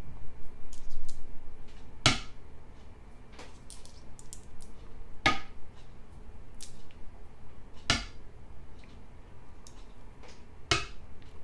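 Go stones clacking down on a board as moves are played: four sharp placements about three seconds apart, with fainter clicks between.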